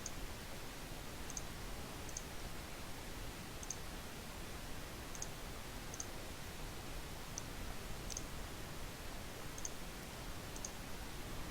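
Computer mouse clicking, about ten short sharp clicks at irregular intervals, over a faint steady microphone hiss.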